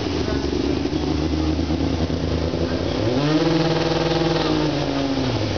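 Race car engine idling, then its revs rise about three seconds in, hold for a couple of seconds and drop back to idle near the end.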